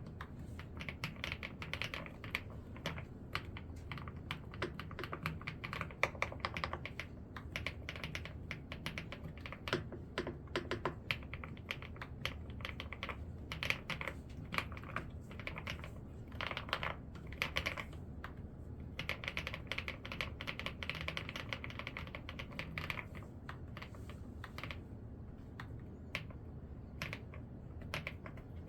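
Fast typing on an ABKO round-keycap 'pebble' mechanical keyboard: dense keystroke clicks in flurries, with short pauses between runs.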